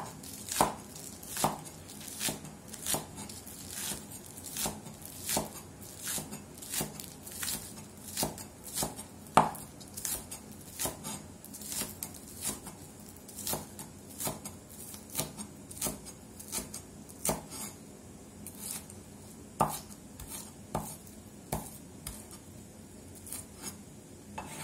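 Cleaver chopping spring onions on a wooden cutting board: sharp knocks of the blade on the board, about one and a half a second in a steady rhythm, thinning out and getting fainter near the end.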